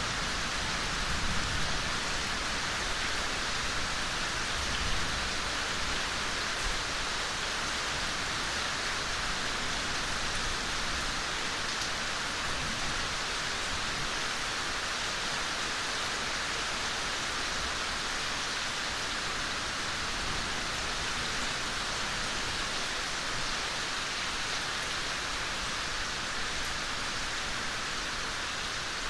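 Steady, gentle rain falling on foliage and the ground, an even hiss with a few slightly louder patters in the first several seconds.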